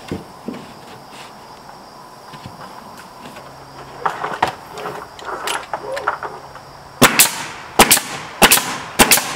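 Pneumatic coil nail gun firing nails into a wooden soffit board overhead: a quick run of loud, sharp cracks about seven seconds in, several within two seconds. Before them come a few seconds of lighter knocks and taps as the board is pressed into place.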